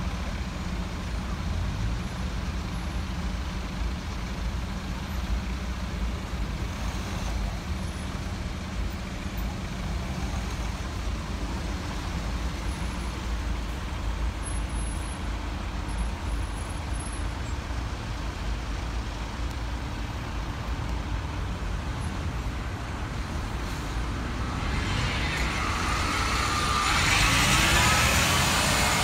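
Slow-moving road traffic with vehicle engines idling and running steadily. Near the end a single-deck Alexander Dennis Enviro200 bus pulls away close by, its rear engine getting louder and rising in pitch.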